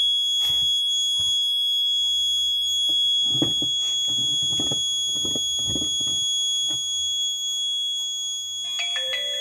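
Piezo alarm buzzer on an Arduino vehicle accident-detection board sounding one steady, high, continuous tone. It is the alarm for alcohol detected by the MQ3 sensor while the GSM module sends the SMS alert. A short burst of other tones comes in near the end.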